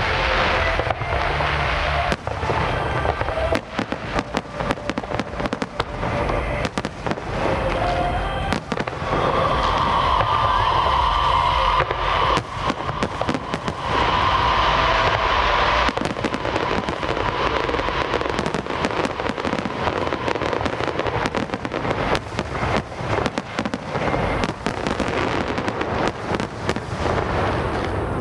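Fireworks display: a dense run of bangs and crackles, one after another, thickest about halfway through.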